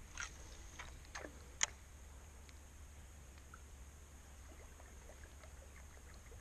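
Quiet, with a few faint clicks and ticks from a fishing rod and reel during a cast and retrieve, including one sharp click about one and a half seconds in.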